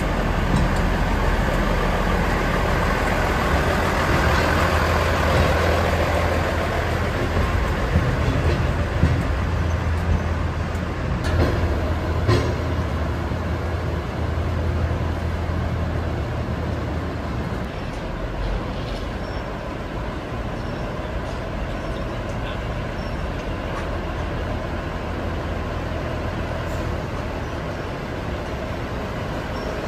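Diesel railcar (DR2303 blue passenger car) running, a steady low engine drone with a few sharp knocks about a third of the way in. The drone weakens about halfway through.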